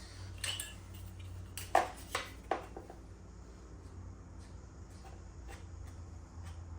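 A few short metal clinks and knocks of hand tools on the dirt bike's chain adjuster hardware, four in the first two and a half seconds, over a low steady hum.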